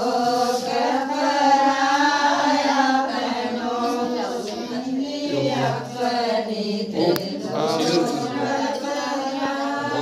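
A group of women singing a traditional wedding folk song together, long drawn-out notes sung in unison, with a few light knocks partway through.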